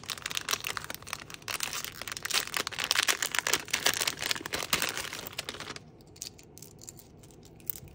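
Packaging crinkling and rustling in the hands as unboxed items are handled. It stops about six seconds in, leaving a few soft clicks.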